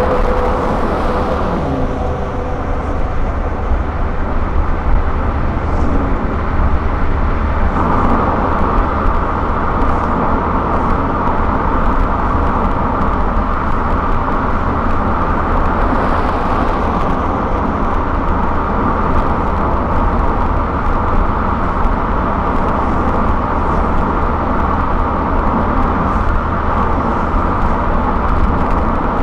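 Steady road noise of a car cruising on a highway: tyre roar and engine hum. A tone slides down in pitch in the first two seconds, and the tyre noise gets a little brighter about eight seconds in.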